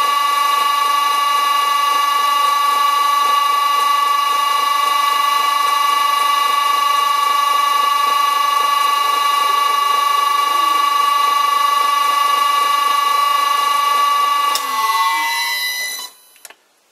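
Vintage Karger lathe's electric motor, run from an old Allen-Bradley VFD at 50 Hz, giving a loud, steady high whine made of several tones, the drive's harmonics noise, while a center drill works the spinning stock; the owner thinks the motor may be working itself loose. About fifteen seconds in there is a click and the whine falls in pitch and dies away as the lathe spins down.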